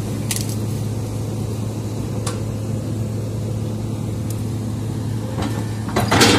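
Hydraulic excavator's diesel engine running steadily with a low hum. A few faint cracks of brush sound, then a louder crunch near the end as the bucket pushes into branches and soil.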